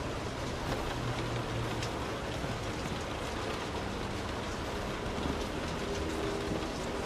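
Rain falling on a car's roof and windows, heard from inside the cabin: a steady patter with scattered sharper taps of single drops.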